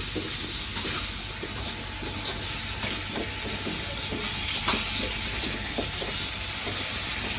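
Pumpkin cubes sizzling in hot oil in a wok while a spatula stirs them, with irregular light taps and scrapes of the spatula against the pan over a steady frying hiss.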